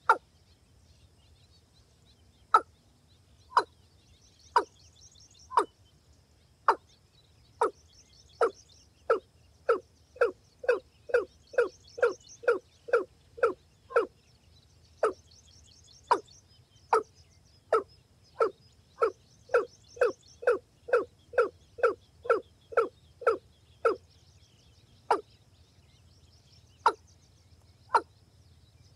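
A rail calling: a series of short, sharp single notes, about one a second at first, quickening to two or three a second through the middle, then slowing back to one every second or two near the end.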